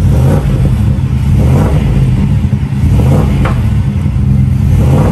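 Ford 5.0 L Coyote V8 of a 2021 F-150 running through its exhaust with a steady low rumble, blipped several times with short presses of the throttle.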